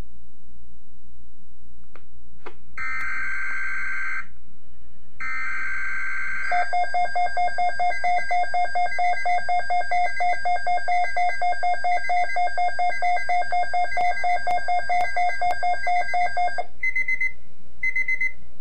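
Weather radio emergency alert signal: two screeching digital data bursts, then an electronic alarm tone beeping in rapid pulses for about ten seconds, then a few short data bursts near the end that mark the end of the alert code.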